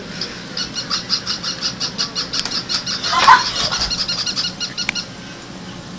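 Battery-powered toy dogs barking through their small speakers: a fast, even run of high, tinny electronic yaps, about six a second, that stops about five seconds in. One louder, sliding yelp stands out about three seconds in.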